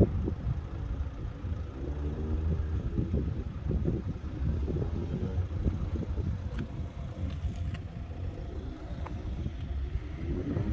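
Road vehicles with engines running, over a steady low rumble; an engine hum comes up for a few seconds about two seconds in.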